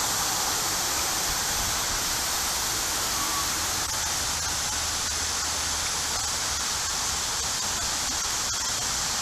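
Steady hiss of background noise, with a few faint clicks in the second half.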